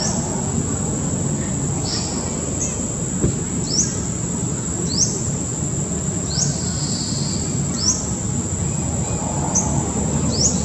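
Steady high-pitched insect drone, with a short rising chirp repeating every second or so, over a low steady background rumble.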